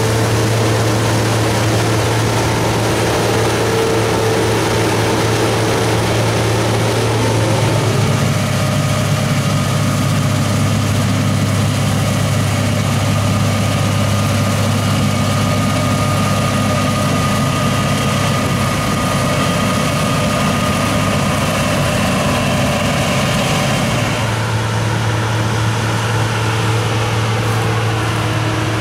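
Combine harvester's diesel engine and threshing machinery running steadily during wheat harvest, a deep drone with steady whining tones above it. The tones shift about eight seconds in and again near the end.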